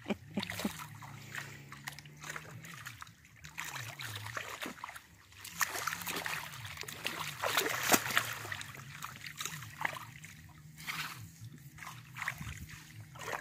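A pig wallowing in a muddy puddle: irregular wet splashing and sloshing of mud and water as it rolls and shifts its body, busiest around the middle.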